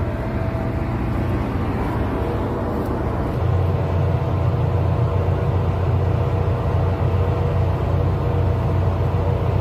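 Steady low drone of a ship's running machinery, growing louder about three and a half seconds in.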